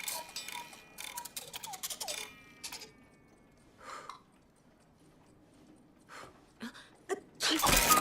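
Clockwork ticking with a few musical tones trailing off over the first two seconds, then a quiet stretch broken by a few soft sounds, and a loud burst of sound starting near the end.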